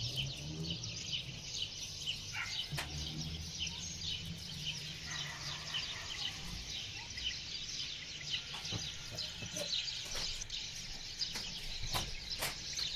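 Many small birds chirping at once, a dense run of quick high chirps overlapping throughout, with a faint low hum underneath in the first half.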